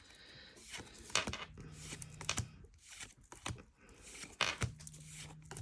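Pokémon trading cards being handled and flicked through, with irregular light clicks and rustles of card and packaging.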